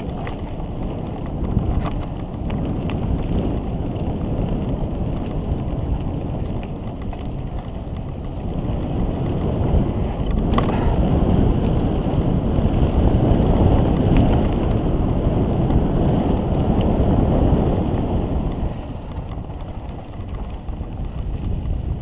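Wind buffeting the camera microphone and mountain bike tyres rolling over a dirt trail during a fast downhill ride, with the occasional sharp click. It grows louder from about halfway through as the bike picks up speed, easing off near the end.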